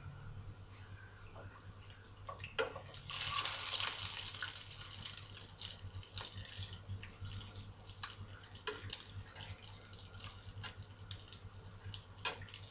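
Pumpkin cutlets sizzling in oil in a frying pan, with scattered clicks and scrapes of a spatula against the pan. The sizzle swells about three seconds in and eases off a few seconds later.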